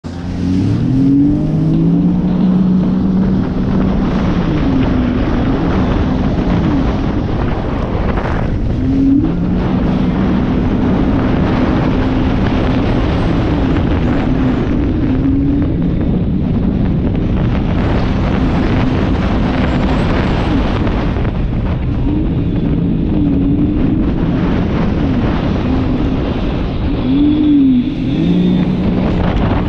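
Jet ski engine running at speed, rising in pitch as it accelerates at the start and dipping and climbing again several times as the throttle changes, over steady wind and water rush.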